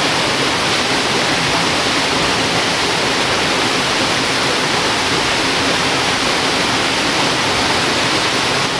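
Steady rush of flowing river water: an unbroken, even hiss that neither rises nor falls.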